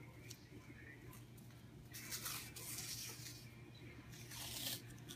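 Athletic tape being pulled off the roll and wrapped around an ankle: a few hissing pulls of tape, the longest about two seconds in and a shorter one near the end.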